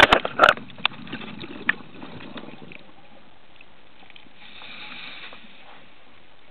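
Underwater, a few sharp knocks and clatters against the camera housing in the first half-second, then fainter clicks over the next two seconds. After that only a low steady underwater hiss, with a brief soft rush about five seconds in.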